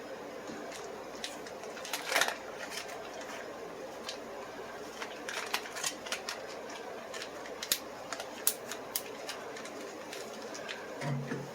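Scattered small clicks and taps, a few of them sharp, over a steady room hum: a pocket knife and small tools being handled on a tabletop.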